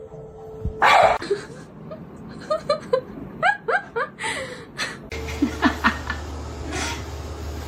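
A person laughing in a quick run of short bursts, after a loud noisy rustle about a second in; a low steady hum comes in near the end.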